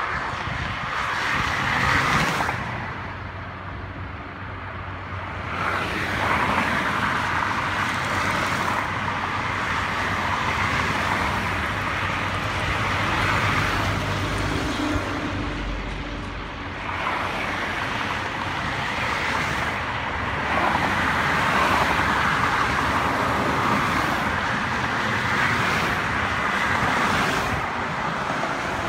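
Expressway traffic: cars and trucks passing one after another, their tyre and engine noise swelling and fading as each goes by, with brief lulls between vehicles.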